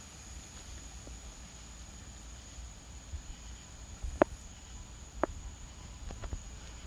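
Night-time storm ambience: a steady high insect drone over a faint low rumble. A few sharp clicks come about four and five seconds in, with smaller ones just after six.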